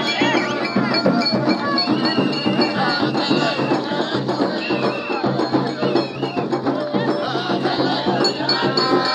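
A crowd of worshippers singing together, with rattling hand percussion keeping a steady beat.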